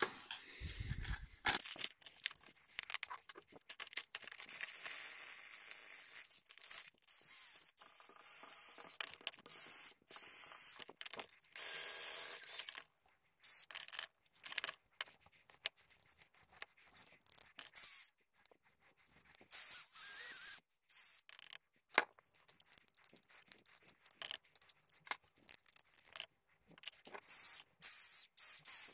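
Bristle brush spun by a cordless drill scrubbing steel RC differential gears in a tub of petroleum spirit. A hissing, scraping scrub runs for several seconds, then comes in short bursts with pauses and sharp clicks of metal parts.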